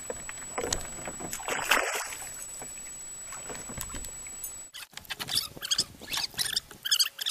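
Water splashing and knocking around a kayak. There is a louder burst of splashing about two seconds in and a quick run of sharp splashes near the end.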